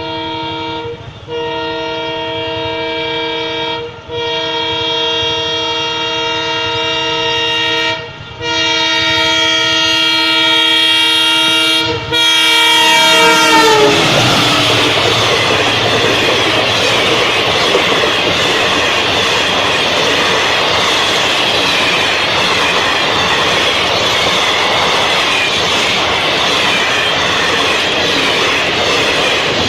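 Indian Railways express locomotive sounding its multi-tone horn in four long blasts as it approaches. The pitch drops as the locomotive passes about halfway through. The coaches then run past at speed with a steady rumble and clickety-clack of the wheels over the rail joints.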